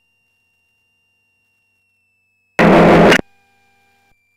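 Aircraft radio feed, silent between transmissions, broken about two and a half seconds in by a loud half-second burst of radio static with no words in it.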